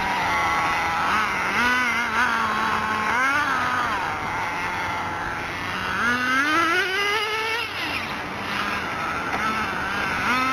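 Ported VX .18 two-stroke nitro engine of an HSP on-road RC car, revving up and dropping back several times as the car laps the track, with its pitch climbing in long sweeps and falling away between them.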